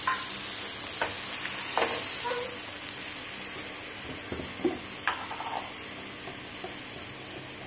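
Spice paste dissolved in water sizzling and bubbling in hot oil and cumin seeds in a frying pan, just after it was poured in; the sizzle slowly dies down. A few short sharp clicks and pops stand out in the first five seconds.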